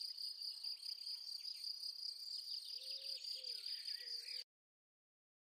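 Crickets chirping steadily in a continuous high pulsing trill, with a few faint bird chirps in the middle. The ambience cuts off abruptly a little over four seconds in, leaving dead silence.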